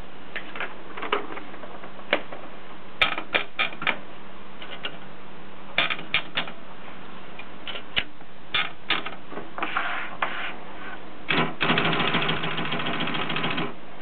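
Adler Gabriele typewriter being loaded with paper: scattered sharp clicks and clacks from its paper-handling parts, then, about eleven seconds in, a rapid ratcheting lasting a couple of seconds as the sheet is wound in on the platen.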